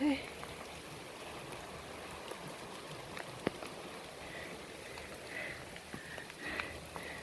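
Steady rain falling on forest foliage, with scattered sharp drips. A short pitched sound comes right at the start, and brief high chirps come several times in the second half.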